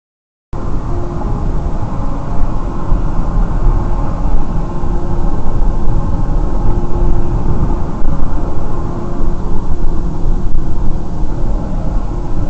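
Steady road and engine rumble inside a moving car, picked up by a dashcam's microphone, starting abruptly about half a second in, with a faint steady hum.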